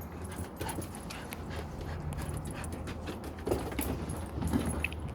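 A dog panting, with a few short whines in the second half.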